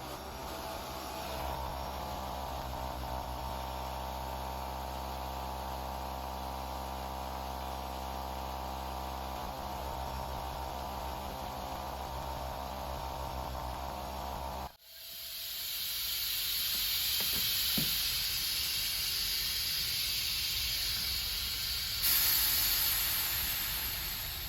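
Husky air compressor's motor and piston pump running with a steady hum, then cutting off abruptly about fifteen seconds in. A steady hiss of compressed air escaping follows and gets louder a couple of seconds before the end. The compressor is faulty: air is blowing out of it and it builds almost no pressure.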